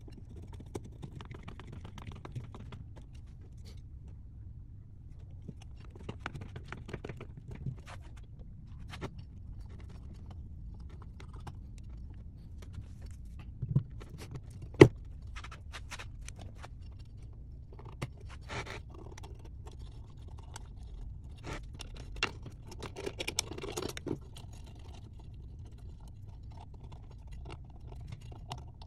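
Metal motor parts being handled on a workbench: scattered scrapes, clicks and light knocks as the armature of a 48 V golf cart motor is fitted into its brush end housing and the spring-loaded brushes are worked into place. One sharp knock about halfway through is the loudest sound, over a steady low hum.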